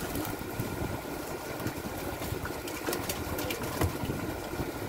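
Fishing boat engine running steadily with a rough, rhythmic rumble, and a few sharp clicks and knocks from net and gear handling on deck about halfway through.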